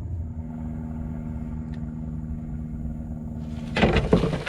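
A steady low drone, then about a second before the end a sudden loud splash as a big fish strikes at the water's surface, one the angler takes for a big redfish.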